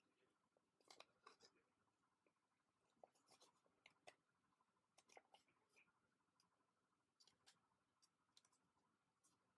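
Faint, irregular crinkling and crackling of a sheet of origami paper being creased and folded by hand, small sharp clicks coming a few at a time.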